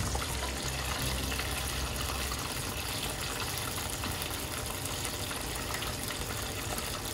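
Chicken pieces deep-frying for karaage in hot oil: a steady, even sizzle.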